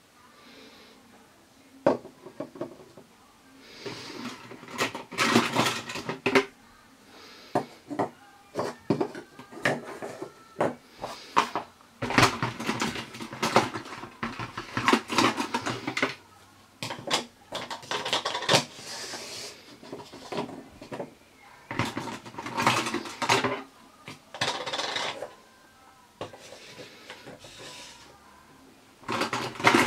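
Small plastic toy tea set pieces clicking and rattling against each other and the table as cups, saucers and a pitcher are lifted out of a clear plastic teapot-shaped holder and set down. The clatter comes in bursts with short pauses between them.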